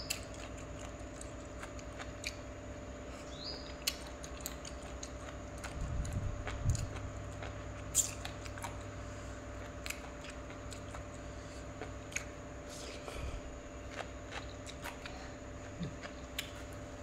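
Close-up eating sounds: quiet chewing and small wet clicks of a mouthful of spicy noodle salad with crisp vegetables and snails, eaten by hand, with a few soft knocks about six to seven seconds in. A steady low hum runs underneath.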